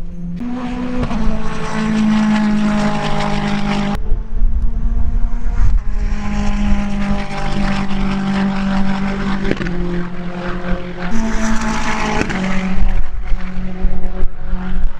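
Praga R1T race car's engine running hard on track. Its pitch holds steady and then steps several times through the gear changes.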